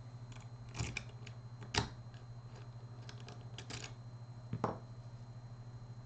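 A few scattered sharp clicks and knocks, as of small hard objects being handled, over a steady low electrical hum.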